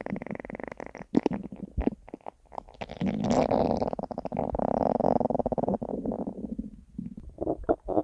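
Hungry stomach growling and gurgling: a run of short bubbly pops and squelches, then a longer rumbling growl from about three seconds in that dies away near seven seconds, with a few more pops at the end.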